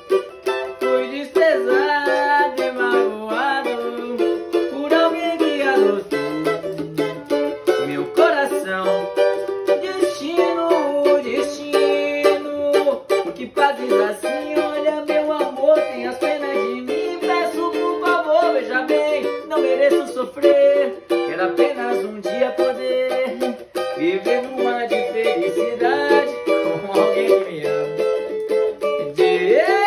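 Cavaquinho strummed in a fast, steady rhythm. Gliding, wavering vocal sounds rise and fall over it at times.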